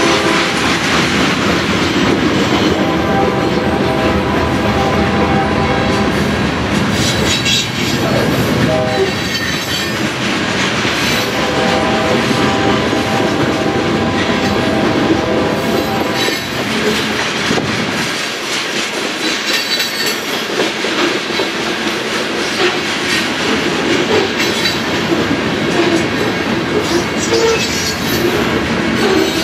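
Covered hopper cars of a freight train rolling steadily past at close range, wheels clicking over the rail joints. Steady ringing squeals from the wheels come and go.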